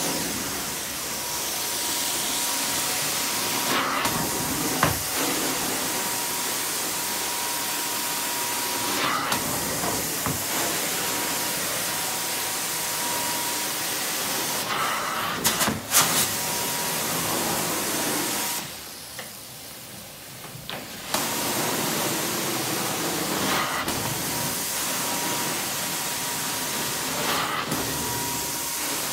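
Carpet steam-cleaning wand spraying and sucking as it is drawn across carpet: a steady loud hiss from the extraction vacuum with a faint steady whine, changing briefly with each pass every few seconds. The hiss drops away for about two seconds around two-thirds of the way through.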